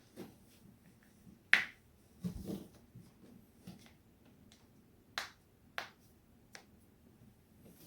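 Joints being cracked: a loud, sharp crack about one and a half seconds in, followed by a duller cluster of pops, then two more sharp cracks a little over half a second apart later on, with fainter pops between.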